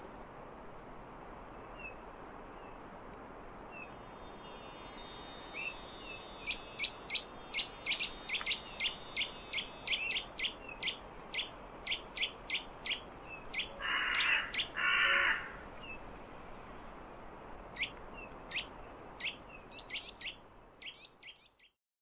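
Woodland birdsong: a long series of short, sharp chirps a couple per second, with a rapid high twittering from about four seconds in and two harsh, rasping calls around the middle, over a faint steady hiss of outdoor ambience. The sound cuts off abruptly just before the end.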